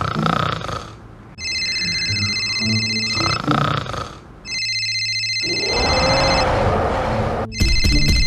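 Cartoon snoring sound effect, a few slow snores, with a steady high electronic ringing tone sounding over it twice. A drawn-out voice sound rising and falling in pitch follows, and near the end a rapid alarm-like ringing starts.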